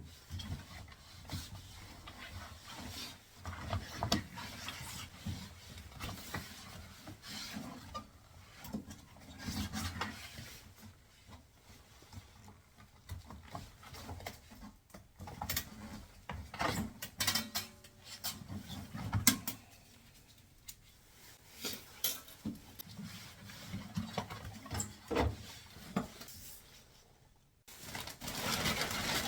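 Irregular rubbing, scraping and clicking of rubber and metal as hands work a front-loading washer's door boot gasket and its spring clamp loose.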